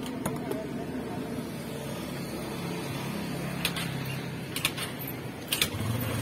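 Steady street background noise with a motor vehicle engine humming nearby, and a few light clicks in the second half as wooden chopsticks and utensils are set down on a wooden counter.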